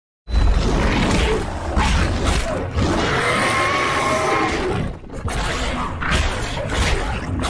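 Made-up creature call for a zombie sauropod: a harsh, rasping growl that starts abruptly after silence, with a wavering higher tone in the middle and a short break about five seconds in.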